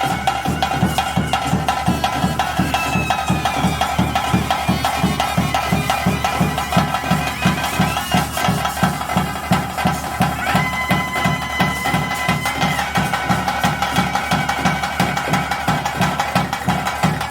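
Ritual band music: a reed wind instrument plays a melody over a steady drone, with fast, even drumming underneath. About ten seconds in, the wind instrument holds one long high note.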